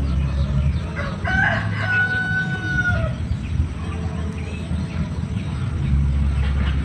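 A rooster crowing once, a single drawn-out call lasting about two seconds that starts about a second in, over a steady low rumble.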